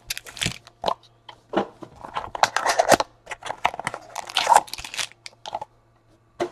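A cardboard card box being handled and opened, and foil-wrapped card packs sliding out and set down: a run of crinkling, crackling rustles that stops about five and a half seconds in.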